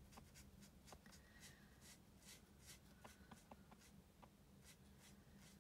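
Faint, short scratchy strokes of an alcohol-ink marker nib over white cardstock during colouring, over a steady low hum.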